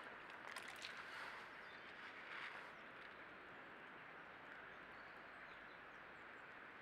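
Near silence: a steady faint hiss, with a few faint ticks in the first second as a hen common pheasant pecks and steps in wet mud.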